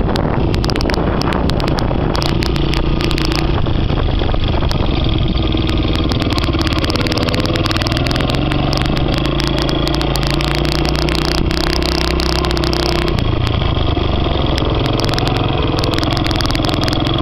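Suzuki JR50's small two-stroke single-cylinder engine running at low, varying speed, its pitch shifting now and then, with frequent crackles and clicks over it.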